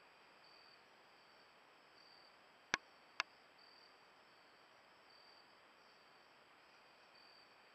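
Faint insects chirping at steady intervals about every second and a half over a steady hiss, broken near the middle by two sharp clicks about half a second apart.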